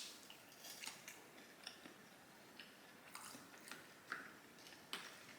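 A person chewing a mouthful of breakfast food close to the microphone, with faint wet lip smacks and mouth clicks scattered through, a sharper click at the start and another near the end.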